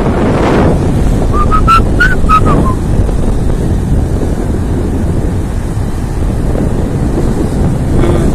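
Wind buffeting the phone's microphone in a loud, steady low rumble, with surf from the flooded shoreline under it. A brief run of about six short high chirps comes at about a second and a half in.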